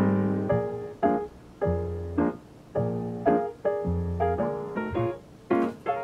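Background piano music: single notes and chords struck about twice a second, each ringing and fading.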